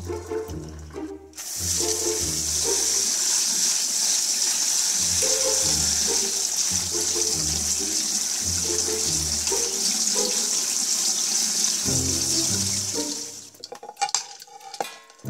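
Kitchen sink faucet running a steady stream of water onto cooked noodles in a metal mesh strainer as they are rinsed. The water comes on about a second in and shuts off near the end, followed by a few light knocks as the strainer is set over a plate.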